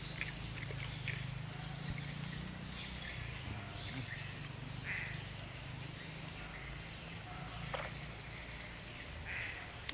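Birds calling: scattered short chirps and a few quick falling whistles, over a steady low background hum.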